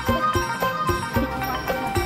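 Background music: a tune of short, quickly repeated notes over held tones.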